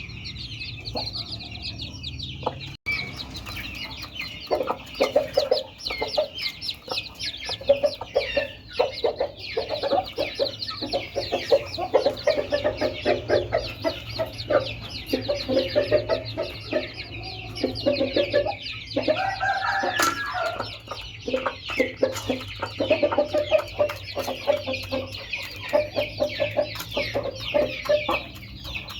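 Aseel hen clucking in short repeated runs while her newly hatched chicks peep rapidly and constantly over it. About two-thirds of the way through, one longer, drawn-out call stands out.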